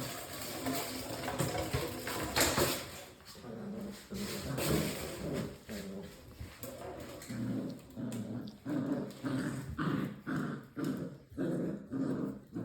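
Six-week-old English Springer Spaniel puppies growling, the sounds coming as short repeated bursts about twice a second in the second half.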